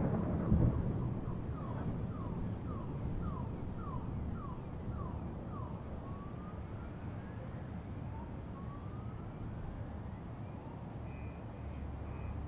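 Thunder rolling away over the first second or two over a steady low city rumble. A distant siren then sounds, first in quick falling sweeps about two a second, then in slower rising glides.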